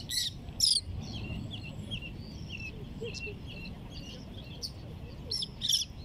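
Birds calling: loud, sharp calls at the start and again near the end, with a run of short, quick chirps in between. A steady low rush of wind and water runs underneath.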